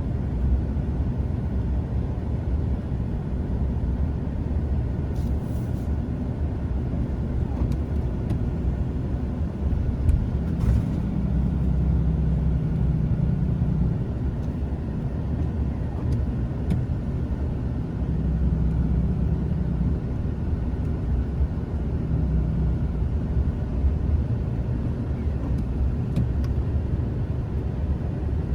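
A motor vehicle running steadily, heard as a low rumble, with a faint engine hum rising out of it for a few seconds at a time.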